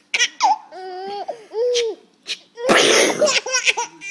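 Baby laughing in high, squealing bursts, broken by a short hissing burst about three seconds in.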